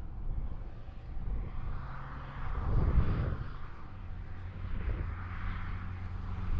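Kia Picanto small city car's engine and tyres droning steadily as the car draws nearer, with wind gusting on the microphone, strongest about three seconds in.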